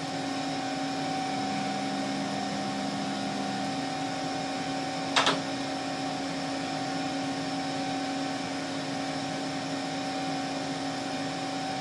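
Steady whir and hum of a homebrew 3-500Z valve linear amplifier and its high-voltage supply running keyed up, delivering about 650 watts into a dummy load. The sound is a low steady tone with a higher one over an even rushing noise, with a single short click about five seconds in.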